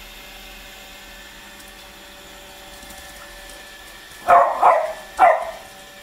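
Beagle barking three times in quick succession, about four seconds in, the last bark slightly apart from the first two.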